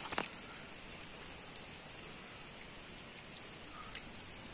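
Small fish flapping and splashing in shallow muddy water: a steady watery hiss with scattered small splashes, one sharper splash just after the start.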